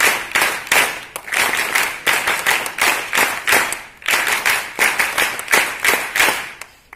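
Applause of hand claps in a steady rhythm, about three claps a second, with two brief pauses, dying away near the end.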